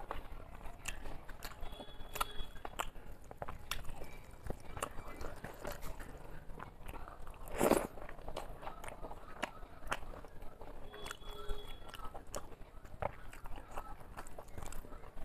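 Close-miked chewing and mouth smacking of someone eating rice and soft curries by hand, a steady run of small wet clicks, with one louder mouth noise a little past halfway.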